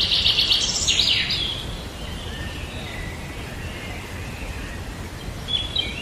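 Birds calling: a loud, rapid chattering trill that ends about a second and a half in, then fainter whistled notes, and a new call starting near the end, over a steady low background noise.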